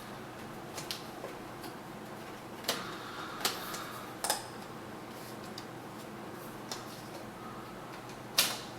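Scattered light clicks and taps of laptop case parts being handled and fitted, a few seconds apart, over a steady low background hum.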